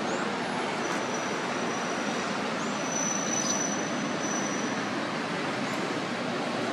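Steady rushing background noise with no distinct events, and a faint thin high-pitched tone over it for a few seconds.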